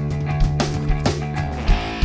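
Background music: guitar-led rock with a steady drum beat.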